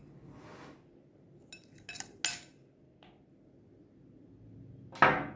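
Spoon clinking and scraping against a bowl as freshly made slime is lifted out, a few short clicks about two seconds in and one louder sharp clatter near the end.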